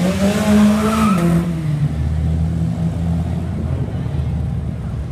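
Car engines running at low speed as parade cars pass one after another: a steady low rumble, with one engine's note rising and then dropping about a second in. Voices in the background.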